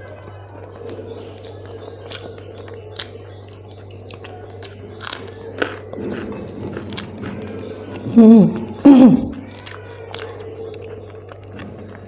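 Close-up eating sounds: chewing, with many sharp crunches and bites of crisp food. Two loud short pitched vocal sounds with a wavering pitch come about eight and nine seconds in.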